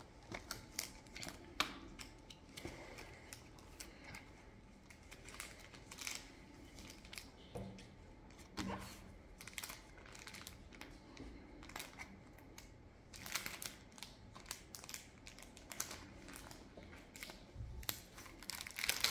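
Clear plastic binder pockets crinkling as trading cards are slid into them and pressed flat by hand, in irregular short crackles.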